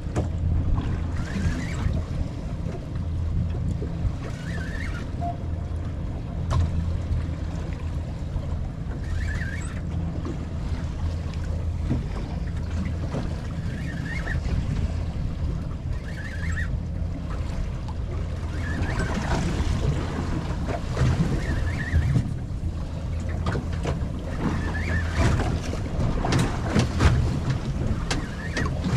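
Wind buffeting the microphone and water slapping against the hull of a small anchored boat, a steady low rumble throughout. Scattered short clicks and knocks, more of them in the second half, come from tackle being handled.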